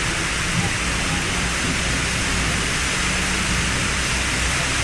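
Steady hiss of rain, with a faint low hum beneath it.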